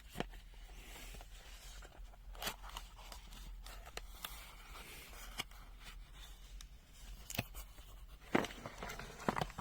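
A box being opened and its packaging handled: faint scattered clicks, scrapes and rustles, with a few louder knocks near the end.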